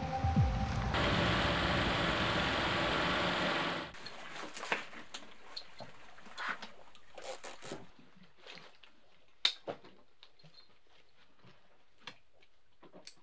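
Steady rushing noise of beach surf for the first few seconds, then it cuts to a quieter stretch of scattered sharp clicks and knocks from a diver handling his scuba gear: buckles, hoses and regulator.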